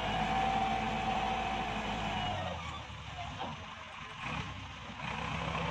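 Farm tractor's diesel engine running under load as it pulls a tine cultivator through dry soil. Its sound drops and thins for about three seconds in the middle, then returns.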